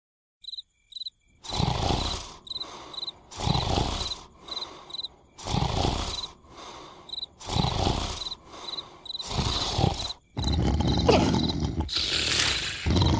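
Cartoon snoring sound effect: a loud snore about every two seconds, running into a longer, louder bout near the end, over crickets chirping steadily about twice a second.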